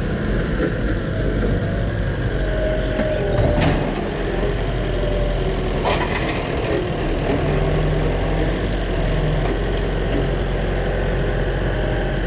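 Heavy vehicle engine running steadily, with two sharp knocks, one about a third of the way in and one about halfway.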